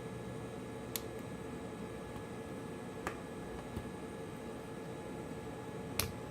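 Four sharp small clicks, the last near the end the loudest, as of small tools and phone parts being handled while a smartphone is taken apart. Under them runs a steady hiss with a faint hum.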